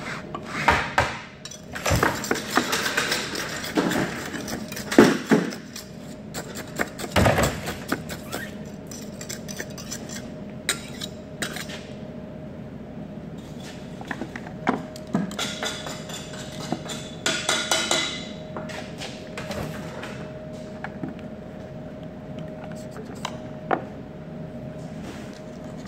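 Hot asphalt mix being rodded with a metal tool in a steel briquette mold: irregular clinks, knocks and scrapes of metal on metal, in busy runs, over a steady hum.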